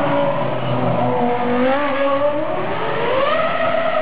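Red Bull Formula One car's engine, its note dropping as the car slows, then rising sharply as it accelerates again about two and a half seconds in.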